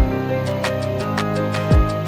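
Background music with a beat: a deep kick drum at the start and again near the end, light hi-hat ticks and sustained chords.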